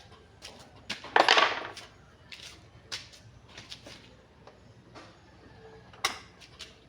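Scattered light clicks and knocks of small hard objects being handled, with a louder rattling burst about a second in and a sharp click near the end.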